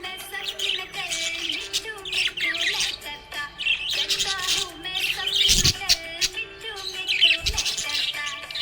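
Budgies chirping and warbling in quick, busy runs over background music with long held notes. Two short low thumps come in the second half.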